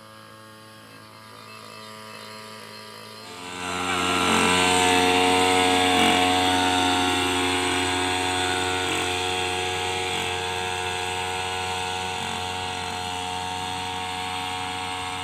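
Motorised backpack sprayer running steadily, its motor humming under the hiss of the spray. It comes in loud about three and a half seconds in after a fainter hum, then slowly fades as it moves away.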